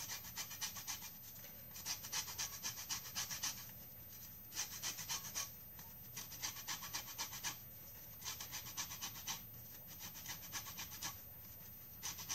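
An orange being grated for zest on a metal hand grater: bursts of quick rasping strokes, about seven runs in all, with short pauses between.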